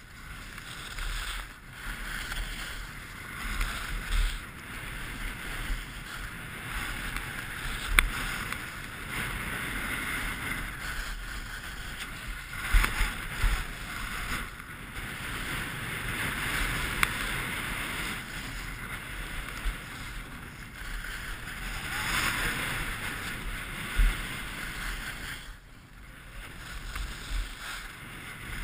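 Skis scraping and carving over packed snow on a fast descent: a steady hiss that swells and eases with the turns. A few sharp clicks stand out, one about eight seconds in, another near thirteen seconds and one near twenty-four.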